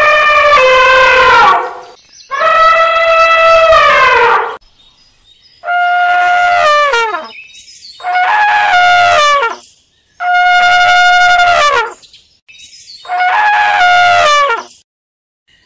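Asian elephants trumpeting: six loud calls, each lasting about two seconds on a steady pitch that drops away at the end, with short gaps between them.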